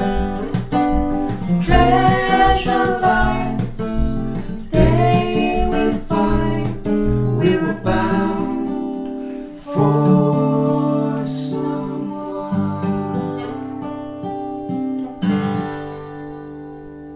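A man and a woman singing a slow folk love song together over a strummed acoustic guitar. Partway through, the steady strumming gives way to a few single chords left to ring, and the sound fades out as the song ends.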